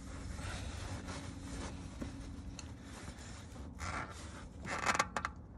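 Shop rags rubbing and scraping around the oil filter and the underside of the engine as spilled oil is wiped up, with a few louder scuffs near the end. A faint steady hum runs underneath.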